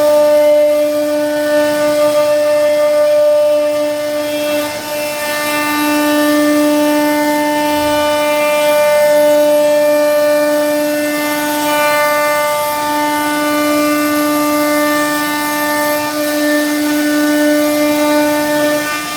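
CNC wood router's spindle running at constant speed with a steady whine while carving a wooden door panel, its pitch unchanging and its level swelling and easing slightly as it cuts.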